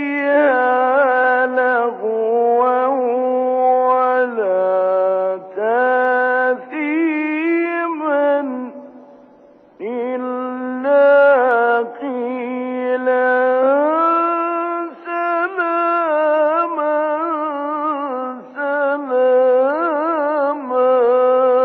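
A solo male Quran reciter chanting in the slow, ornamented mujawwad style: long held notes that rise, fall and waver in melismatic turns. The voice fades out and stops for about a second roughly nine seconds in, then resumes.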